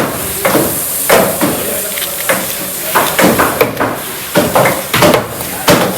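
Fish being chopped with a heavy knife on a cutting block: a run of sharp, irregular thuds, with voices in the background.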